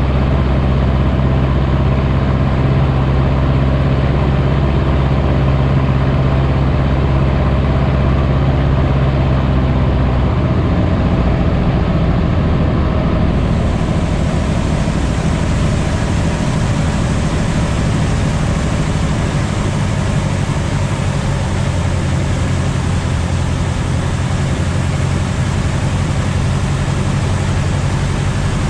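Cub light aircraft's piston engine and propeller running steadily in cruise, heard loud from inside the cockpit with rushing air. Its strong steady low drone changes character about ten seconds in.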